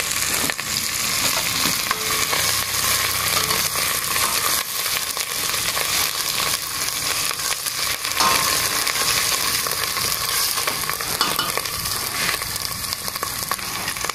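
Garlic, onion, ginger and lemongrass sautéing in hot oil in a pot: a steady sizzle with fine crackles, stirred as they cook.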